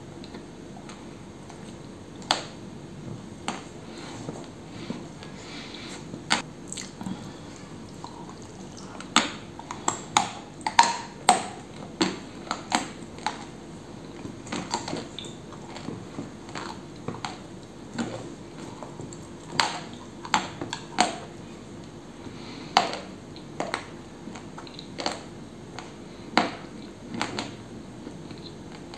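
Close-miked chewing of pressed edible clay with cream: sharp crackling crunches at an irregular pace, coming in quick clusters and then pausing.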